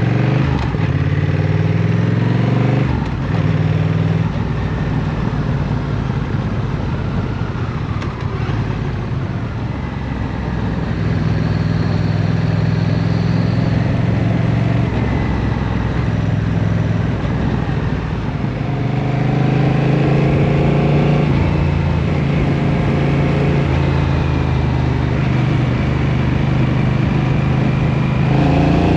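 Honda CMX1100 Rebel's parallel-twin engine running as the motorcycle rides in city traffic: it revs up through the gears at the start, again about two-thirds of the way through and at the very end, and runs steadier and lower in between.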